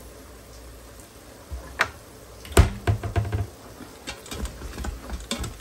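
A utensil clicking and knocking against the stainless steel inner pot of an Instant Pot while stirring ground meat as it browns. The loudest knock comes about two and a half seconds in, followed by a run of lighter clicks.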